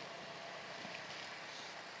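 Faint, steady outdoor hiss of light wind and open-air background noise, with no distinct event.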